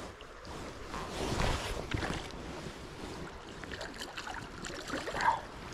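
River water splashing and sloshing as a hooked trout thrashes at the surface while being played to the landing net, loudest about a second in.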